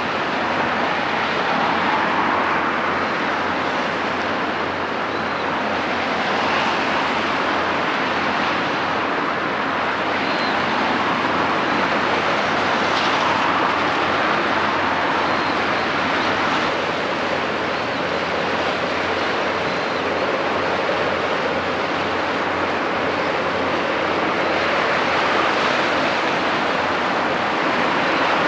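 Steady rushing noise of sea waves and wind, with no distinct engine note standing out.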